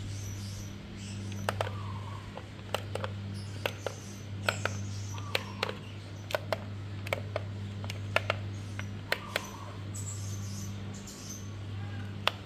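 Sharp, irregular plastic clicks and taps as a toy RC excavator's hand-held 2.4 GHz transmitter is handled and its joysticks worked, about a dozen through the middle and two more near the end. Under them runs a steady low hum, and short high chirps come back every couple of seconds.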